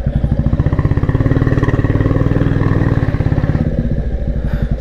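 Royal Enfield Classic 350's single-cylinder engine running under way, with a steady, even thumping beat.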